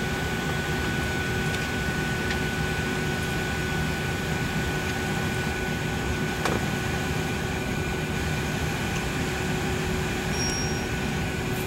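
Steady hum and hiss inside an Embraer 190 airliner's cabin on the ground, with the air conditioning running and a constant thin whine over it. A single click about six and a half seconds in.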